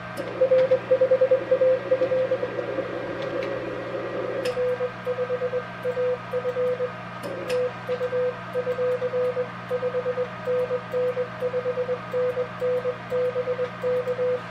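Morse code from an Elecraft K3 transceiver: a single note of about 500 Hz keyed in dots and dashes as the operator sends by hand on a Morse key, over a steady low hum and faint clicks.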